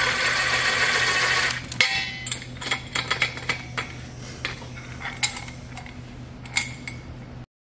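Cordless DeWalt impact driver with a socket runs a nut down a bolt through a steel leg and foot bracket, and stops about a second and a half in. A series of light metal clinks and knocks follows as the galvanized steel parts are handled.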